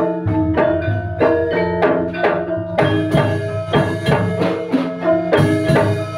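Javanese gamelan ensemble in pelog tuning playing: bronze metallophones and bonang gong-chimes struck in a steady run of ringing notes, with kendang drum strokes beneath.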